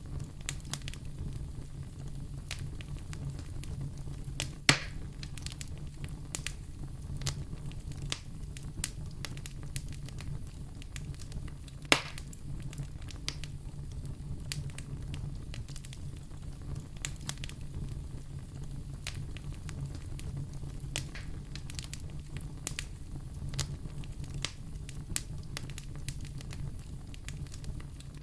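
Fireplace fire crackling steadily over a low, even rumble, with two loud sharp snaps about five and twelve seconds in.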